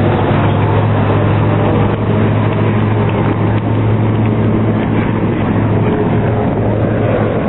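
A vehicle engine running at a steady speed: a loud, even low drone with no revving.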